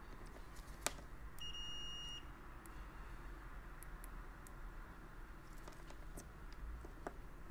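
Multimeter continuity beeper giving one high beep of under a second, about a second and a half in, signalling a connection between the test probes on the plug's pins. Light clicks of the probe tips against the pins.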